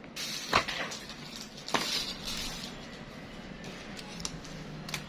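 Handling noises from a Zippo lighter and its packaging: two sharp metallic clicks, about half a second and a second and three quarters in, with rustling around them and a couple of fainter clicks near the end.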